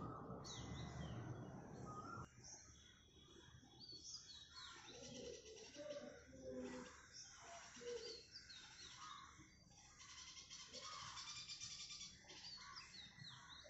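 Faint chirping of several small birds, many short downward-sweeping notes repeated throughout. A low background rumble cuts off abruptly about two seconds in.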